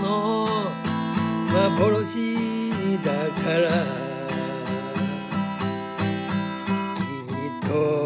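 A man singing over a steel-string acoustic guitar strummed in a steady rhythm.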